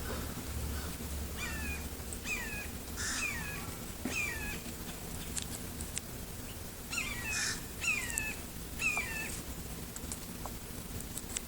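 A bird calling in two series of four short, harsh calls, each falling in pitch, the second series starting about seven seconds in.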